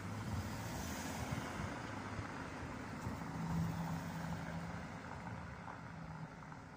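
A motor vehicle running nearby: engine hum and road noise, fading away over the last couple of seconds.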